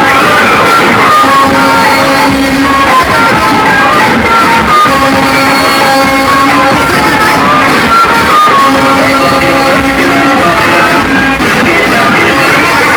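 Loud music blasting from a car sound system, a melody of held notes repeating in short phrases.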